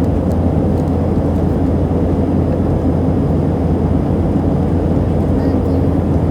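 Steady rumble of engine and air noise inside a passenger jet's cabin in flight, even and unchanging.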